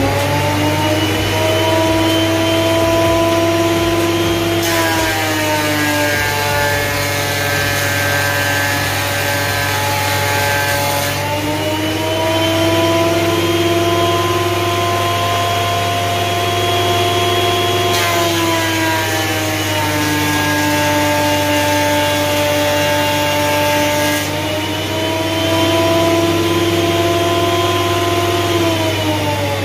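Porter-Cable benchtop thickness planer running with a high motor whine. Twice, for about six seconds each, the whine drops in pitch and a loud cutting hiss comes in as a board is planed, then the whine rises again. The motor winds down near the end, over the steady low hum of the dust collector.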